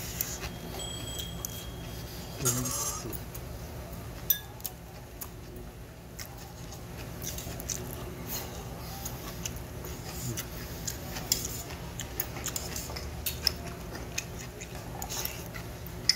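Close-miked eating sounds: chewing and wet mouth smacks on mouthfuls of barley bibimbap, with a spoon and chopsticks clinking against a stainless steel bowl. Sharp clicks are scattered all through.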